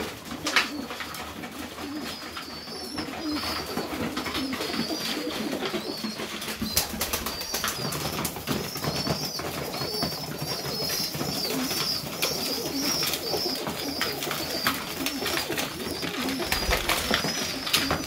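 Serbian Highflyer pigeons cooing, with a busy run of short, high repeated chirps and scattered clicks and scuffles.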